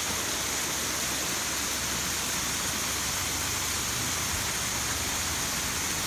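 Small mountain spring cascading down over rocks: a steady rushing splash of running water.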